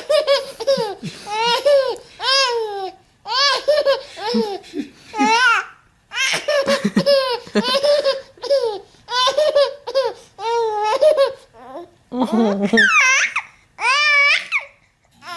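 A baby laughing hard, in a long run of short, high-pitched bouts with brief breaths between them.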